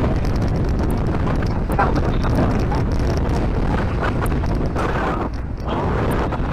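Strong wind buffeting the microphone: a steady low rumble that rises and falls in gusts, with a brief lull about five seconds in.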